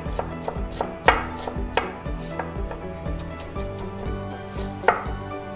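Chef's knife dicing an onion on a wooden cutting board: a run of quick, light knife taps on the board with a few harder chops among them.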